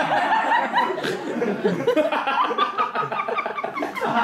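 Audience laughing, many voices at once.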